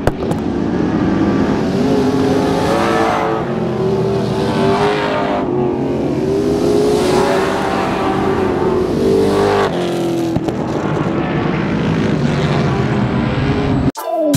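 Stock cars racing on an oval track, their engines running continuously while several cars pass close by one after another, the engine pitch falling away as each goes past.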